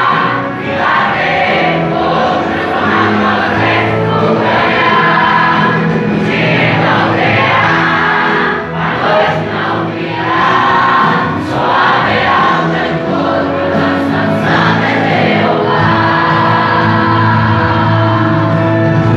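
Choir singing a gospel song, with music sustained throughout.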